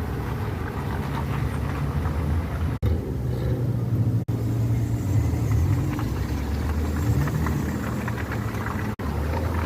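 Steady low hum of a vehicle's engine running, broken by abrupt cuts about three seconds in, four seconds in and near the end.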